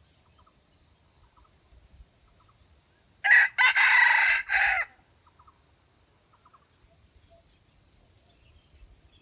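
Rooster crowing once, about three seconds in: a loud cock-a-doodle-doo of about a second and a half, in three parts with a long middle note.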